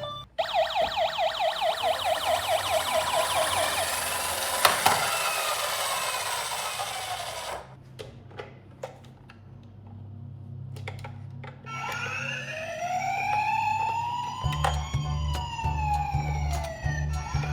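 Emergency vehicle sirens: a fast, repeating up-and-down siren for about the first seven seconds, then a quieter gap with a few clicks, then a slow rising-and-falling wail from about twelve seconds in, with a low pulsing sound beneath it near the end.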